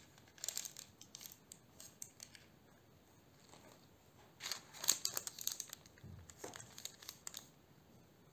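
Silicone spatula spreading thick cake batter in a parchment-lined baking tray: crinkling and scraping of the baking paper in two spells of short rustles, loudest about five seconds in.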